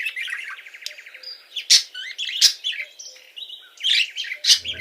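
Small birds chirping and twittering, with a fast trill near the start and several sharp, loud chirps.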